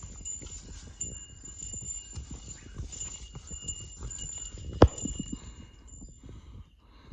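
A hiker's footsteps crunching and knocking on a rocky mountain trail, with wind buffeting the microphone. One sharp knock about five seconds in is the loudest sound, and a thin high steady whine stops about six seconds in.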